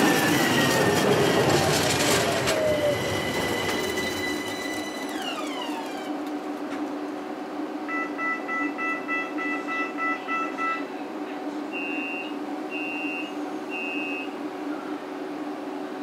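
Midland Metro T-69 tram pulling in close by: loud wheel and running noise with a squeal at first, then a whine falling in pitch as it brakes to a stop, leaving a steady hum from its equipment. Once stopped, rapid door warning beeping for about three seconds, then three short two-note beeps.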